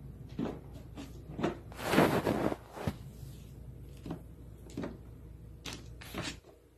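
A small dog pawing and scratching at a snack canister: a run of short scrapes and knocks, with a longer, louder scraping rustle about two seconds in and a sharp click just after.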